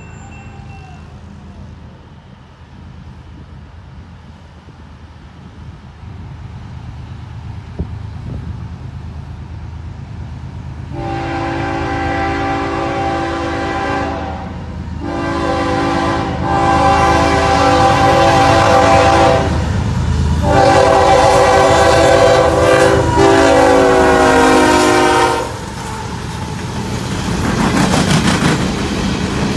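CSX diesel freight locomotives approaching with a low rumble that grows steadily louder, sounding a multi-note air horn in three long blasts for the grade crossing, the last one ending about 25 seconds in. Near the end the locomotives pass close by with a heavy rumble and the clatter of wheels as the loaded coal hopper cars start rolling past.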